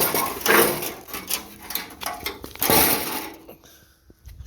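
A sheet-metal car body part being handled and flipped over, scraping and rattling in two loud bouts: one at the start and a second near three seconds in.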